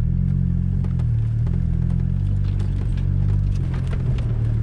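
Car engine and tyres on a gravel road, heard from inside the cabin. A steady low drone shifts in pitch a few times, with scattered light ticks and rattles.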